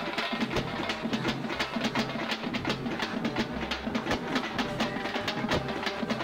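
Background film score: music driven by a fast, steady drum and percussion pattern over low bass notes.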